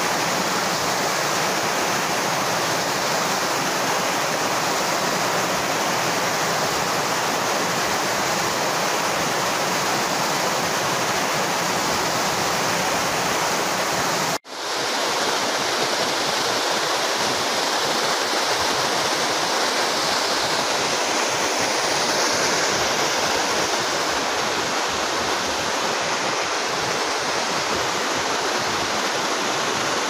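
Waterfall: water cascading over a stepped dam wall and rocks into a pool, a steady rushing noise. It cuts out for an instant about halfway through, then carries on.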